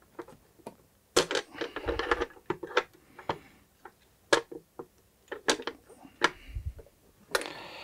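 Scattered sharp clicks and taps of small hand tools and wires being handled, as a pair of side cutters is picked up and worked at the wire terminals.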